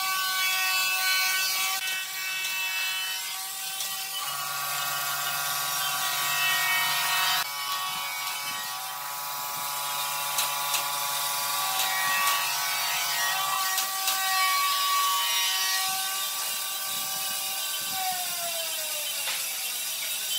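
Electric angle grinder with a sanding disc sanding the edge of a round wooden tabletop: a steady high motor whine over the hiss of abrasive on wood. The pitch shifts a few times and slides down near the end.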